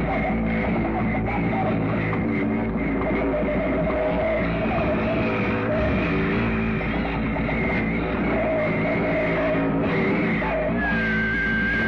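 Harsh noise music played from a cassette: a dense, unbroken wall of noise with layered, wavering drones and tones. A thin high tone enters near the end.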